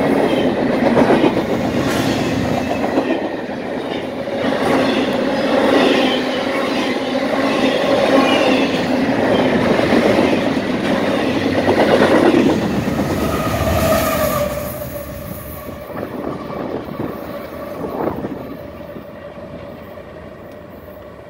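Double-stack freight well cars rolling past close by: a steady wheel rumble with repeated clacks over the rail joints and a steady ringing tone over it. About fourteen seconds in the noise drops away as the last cars pass, and it fades out.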